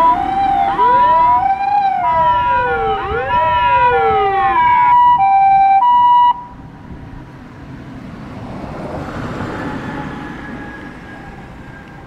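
Japanese ambulance siren sounding: a two-tone hi-lo 'pee-po' alternating about twice a second, with rising-and-falling wailing glides over it. It cuts off abruptly about six seconds in, leaving quieter traffic noise that swells and fades.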